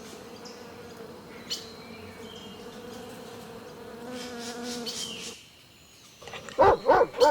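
A bee buzzing with a steady hum for about five seconds, then stopping. Near the end a dog barks several times in quick succession.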